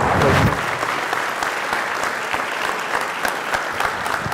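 Auditorium crowd applauding, a dense steady patter of many hands clapping, with a brief low rumble right at the start.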